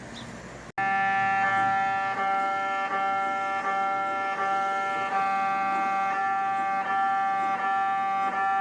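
MRI scanner in a mobile MRI trailer running a scan, heard from outside the trailer: a loud, steady buzzing tone with a faint pulse repeating a little faster than once a second. It starts abruptly, under a second in.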